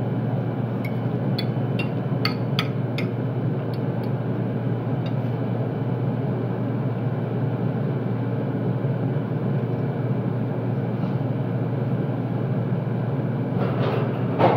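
Steady hum of commercial kitchen ventilation. In the first three seconds a metal fork clinks several times against a ceramic plate.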